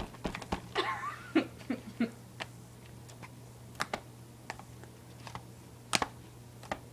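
Slime being squeezed and stretched by hand, making scattered small clicks and pops.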